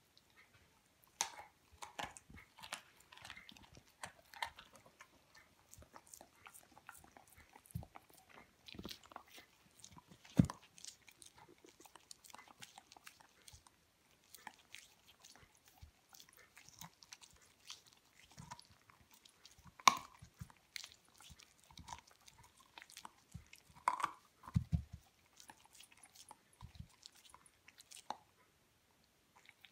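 A seven-month-old Hamiltonstövare hound chewing and biting a raw chicken leg quarter, thawed and softened with boiling water: irregular sharp clicks and snaps of teeth on meat, the loudest about ten and twenty seconds in.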